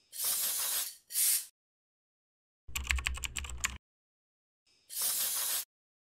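Logo-intro sound effects: short hissing whooshes, two close together at the start and one about five seconds in, with a second-long clatter of rapid keyboard-typing clicks about three seconds in.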